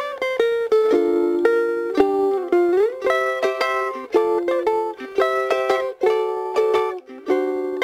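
Bruko No.6 ukulele played fingerstyle: a plucked melody over chords, with a slide up in pitch about two and a half seconds in.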